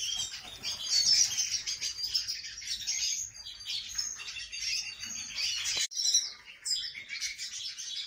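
Small cage finches chirping and twittering, many quick overlapping chirps, with a sudden break just before six seconds in.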